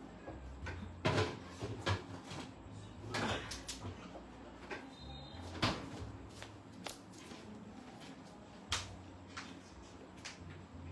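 Irregular knocks and clunks of household objects being handled and set down, about a dozen spread unevenly over several seconds. The loudest come a little after one second in and near six seconds.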